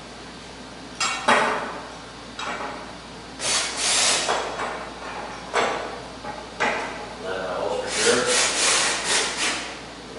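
Mural paper being rubbed and handled: a series of about six scraping strokes, some short and sharp and some drawn out over a second or more.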